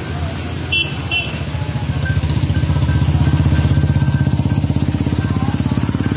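Motorcycle engine running with a fast, even pulse, growing louder to a peak about halfway through and then easing off. Two short high chirps come about a second in.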